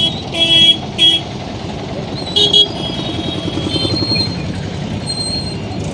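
Vehicle horns tooting briefly three times in the first three seconds, with a couple of fainter beeps later, over a steady rumble of street traffic.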